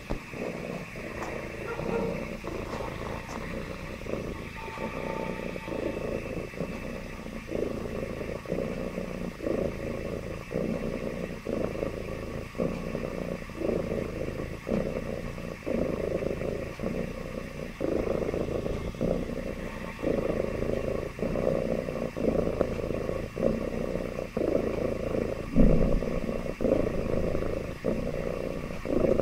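Domestic cat purring steadily, swelling and easing about once a second with each breath. One brief louder thump near the end.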